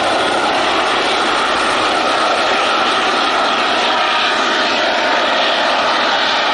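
Airbus ACH145 (H145 D-3) five-bladed helicopter climbing away after take-off. Its turbines and rotors make a loud, steady rushing whine.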